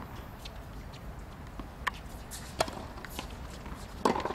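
Tennis rally on an outdoor hard court: a ball struck by rackets and bouncing, heard as four sharp pops spread over a few seconds, the loudest near the end.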